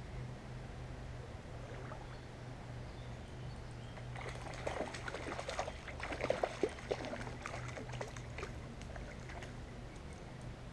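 A small hooked fish splashing and thrashing at the water's surface as it is played on a fishing line. The splashes are irregular and come in a cluster from about four seconds in, easing off after about eight seconds.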